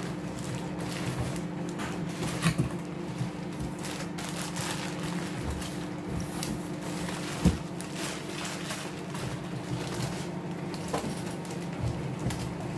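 Steady low electrical hum from a running appliance, with scattered light clicks, knocks and rustles as a new microwave and its packaging are handled; one sharper knock comes about halfway through.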